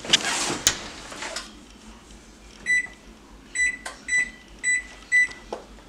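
Oven door clattering shut with a couple of sharp clunks, then the microwave's keypad beeping five times, one short high beep per button press, as a cooking timer of about an hour and a quarter is keyed in.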